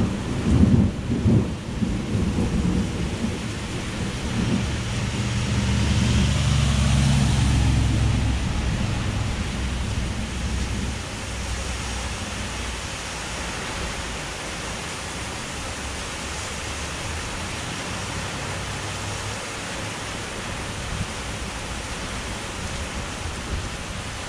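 Heavy rain pouring steadily, with thunder: a crackling burst right at the start, then a deep rumble that swells over several seconds and dies away about ten seconds in, leaving the rain alone.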